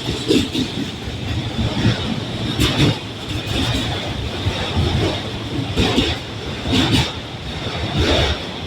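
Freight train cars rolling past with a steady rumble and a high hiss. Wheels clack over rail joints at uneven intervals, a few sharp clacks a few seconds apart.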